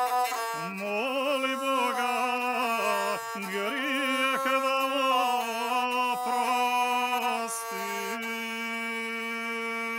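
Gusle, the single-string bowed folk fiddle, playing a closing melody with wavering, sliding ornaments, settling into steadier held notes in the second half.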